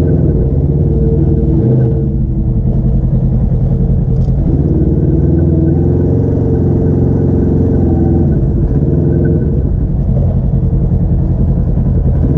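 Polaris RZR side-by-side engine running steadily while driving, its pitch shifting slightly a couple of times.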